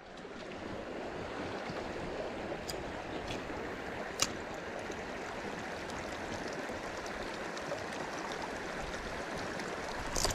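Small channel of running water making a steady flowing rush, with a few light clicks, the sharpest about four seconds in.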